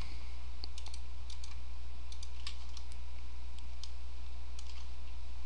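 About a dozen faint, irregular computer mouse and keyboard clicks from working the CAD software, over a steady low electrical hum.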